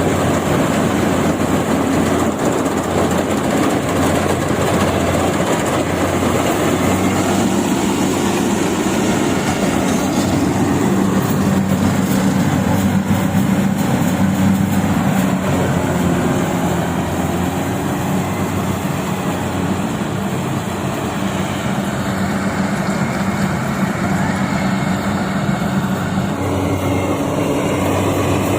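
Yanmar AW70V combine harvester running steadily at full power while harvesting rice: the engine's continuous low drone mixed with the clatter of its cutting and threshing machinery.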